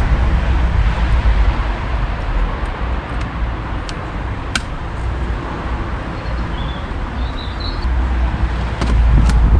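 Steady outdoor background noise, a low rumble and hiss like passing traffic and wind on the microphone, with a few sharp clicks, the clearest about halfway through.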